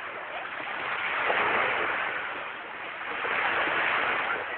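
Small sea waves breaking and washing up a sandy beach. The surf swells about a second in and again, more strongly, near the end.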